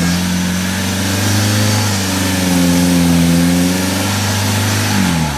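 Jeep engine revving steadily. Its pitch climbs and eases back around the middle, then the revs drop off sharply near the end.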